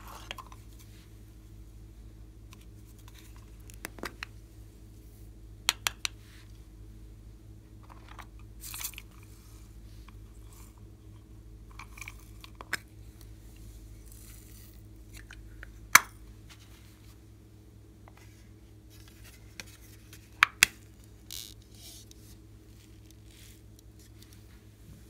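Plastic toy containers handled close up: scattered sharp clicks and taps as lids snap and cases knock, a few in quick pairs, with short soft rustles of small foam beads and sprinkles going into a glass dish. A faint steady hum lies underneath.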